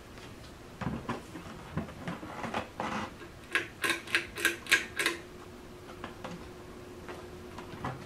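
Hampton Bay Gazebo ceiling fan's pull-chain switch being worked: a quick run of about six sharp, metallic clicks and chain rattles, after a few softer knocks. Then the fan motor's steady hum carries on.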